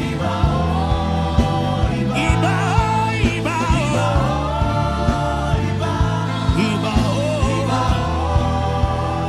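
Gospel worship music: a sung voice gliding and wavering without clear words over sustained bass chords and a steady beat.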